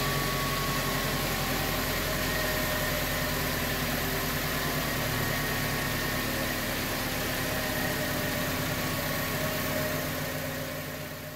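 Toyota Tacoma 2.7-litre four-cylinder engine idling steadily with its new drive belt, tensioner and idler pulley, free of the earlier idler-pulley noise. It fades out near the end.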